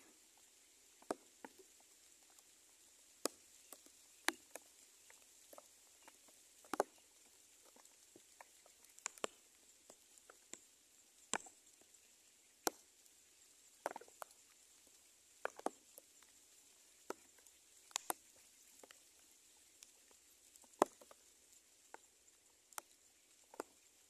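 Irregular sharp little ticks and taps, roughly one a second, over a faint steady hiss.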